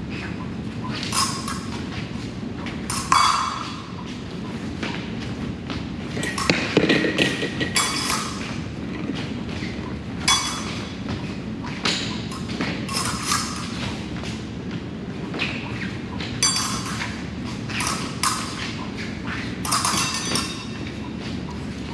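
Fencing blades clinking and ringing against each other in scattered beats and attempted binds, mixed with thuds of footwork on the metal piste.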